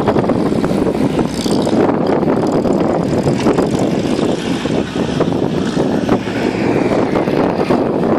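Off-road 4x4 engine running hard as the vehicle drives over rough ground, with frequent knocks and rattles.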